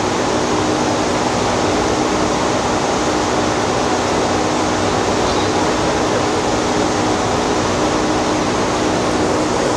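Steady loud roar of water treatment plant equipment, with a steady hum running under it.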